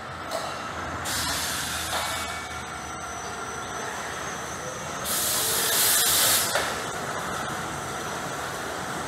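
Pieri AVR 400 ring-type stretch wrapper running over a steady machine hum, with hisses of compressed air: a short one near the start and a louder one lasting about a second and a half, about five seconds in.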